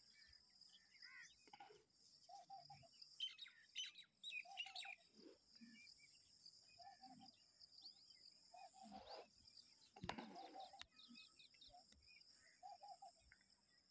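Faint rural outdoor ambience: birds chirping and calling over a steady high-pitched insect drone, with one short low call repeating about every second and a half.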